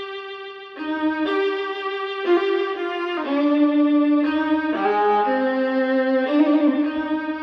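Violin music played back through Fyne Audio F500SP hi-fi loudspeakers. A held bowed note gives way, just under a second in, to a slow melody of sustained notes that change every half second to a second, often with two notes sounding at once.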